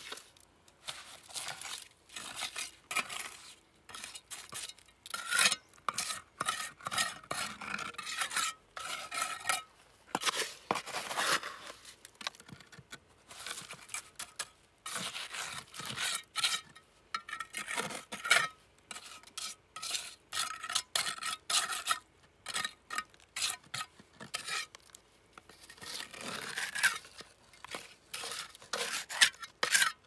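A metal implement scraping and clinking against a hard container in quick, irregular strokes with short pauses.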